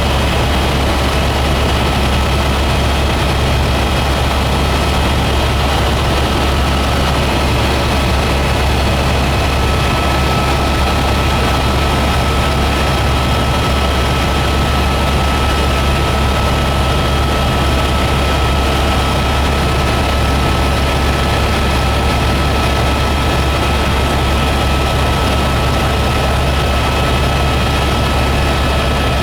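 Helicopter in steady flight, heard from inside the cabin: a constant low rotor drone with a steady high turbine whine over a loud rushing noise, unchanging throughout.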